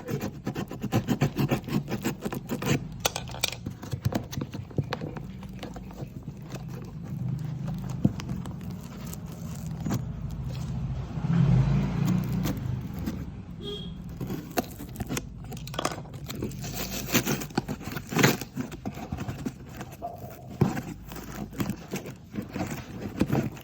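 Unboxing handling noise: irregular rustling, scraping and light metallic clinks as packaging and the exhaust are handled, with a low hum that swells about halfway through.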